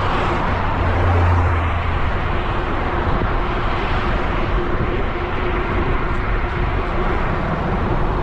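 Wind rushing over an action camera's microphone on a moving bicycle, a steady rumbling noise with tyre and road noise underneath and a steady low hum. A louder low drone comes in briefly about a second in.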